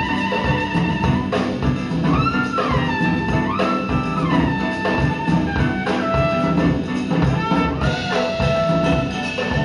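Small jazz group (trumpet, tenor saxophone, piano, bass and drums) playing live, a horn carrying a melody line that slides between notes over the rhythm section.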